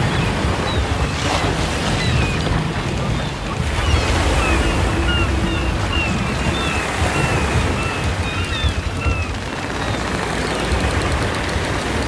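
Ocean surf washing steadily onto a beach, with many short seagull cries scattered over it that thin out after about nine seconds.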